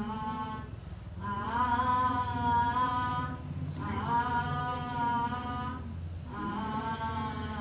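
A lone female voice sings a slow, unaccompanied tune without words. There are three held phrases of about two seconds each, with short breaks between them.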